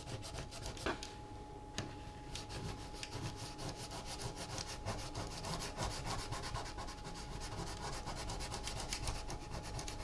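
Fingertip rubbing dried masking fluid off watercolor paper, lifting the rubbery film from the paper surface in quick, repeated strokes, with a couple of sharper ticks in the first two seconds.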